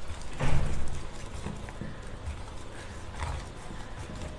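Wire whisk beating thick, wet batter in a stainless steel bowl, knocking and scraping against the metal in a rough, uneven rhythm, loudest about half a second in.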